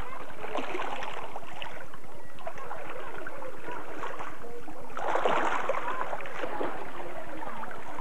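Small waves lapping and washing over shoreline rocks in shallow seawater, swelling briefly near the start and again about five seconds in.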